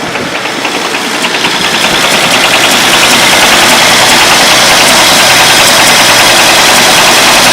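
Car engine running with a rhythmic rod knock. It grows louder over the first few seconds, then holds steady. The knock is the sign of a failed connecting-rod bearing on a badly pitted crankshaft journal.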